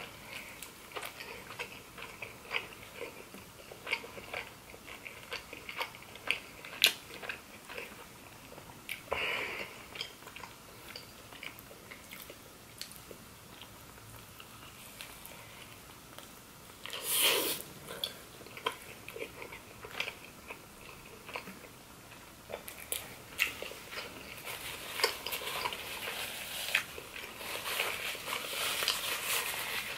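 Close-miked eating sounds of a cheeseburger being bitten and chewed: wet smacks and small clicks from the mouth, with one louder burst about 17 seconds in and busier sounds near the end.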